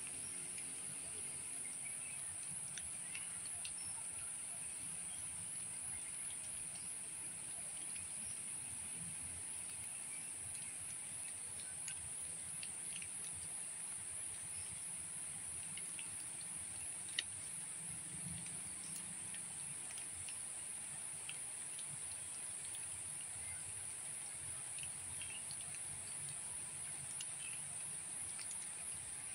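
Steady high-pitched insect chorus over a faint low rumble, with scattered short chirps and one sharp click about seventeen seconds in.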